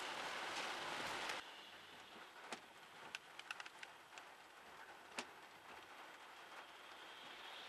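Heavy rain hissing steadily for about the first second and a half, then cutting suddenly to lighter rain. In the lighter rain, scattered sharp taps of raindrops hit a car's roof and windows, a few in a quick cluster near the middle.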